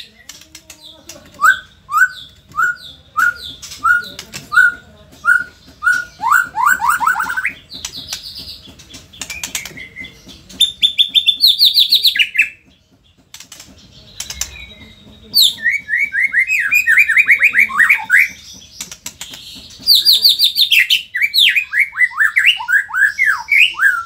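White-rumped shama singing continuously: loud, varied whistled phrases, including a run of evenly spaced repeated notes, fast series of sliding notes and high rapid trills, with short pauses between phrases.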